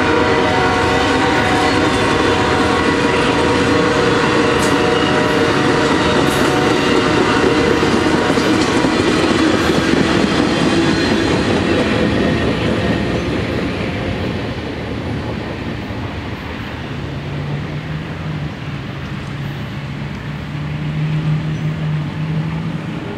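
Amtrak passenger train's last cars rolling past with loud wheel-and-rail noise and a steady ringing pitch, then fading over the next several seconds as the train pulls away. A low steady engine hum comes in near the end.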